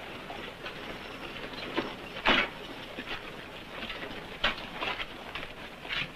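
A scattering of irregular knocks and thumps, the loudest a little over two seconds in, over a steady hiss.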